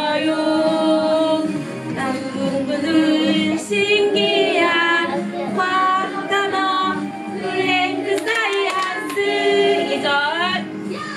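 A group of young children and women singing a song together, in held notes that move through a tune.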